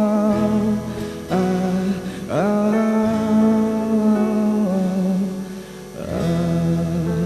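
A man singing wordlessly, holding long notes with sliding pitch, over a small acoustic guitar strumming a simple two-chord accompaniment.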